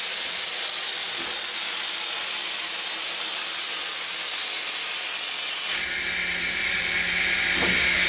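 Mori Seiki NT 4300 DCG turning and milling center running with a loud, steady, high hiss that cuts off suddenly about six seconds in. What remains is a softer hiss with a steady low hum and a brief rising whine as the milling head swings into position.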